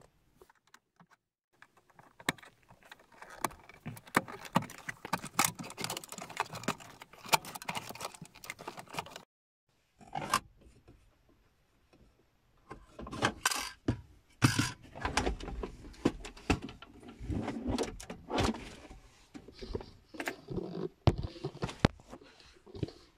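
Plastic centre-console trim panel around a car's cigarette lighter socket being pried and pulled loose by hand: a busy run of plastic clicks, rattles and scrapes. After a pause about halfway, more knocks and scraping follow as the panel comes free.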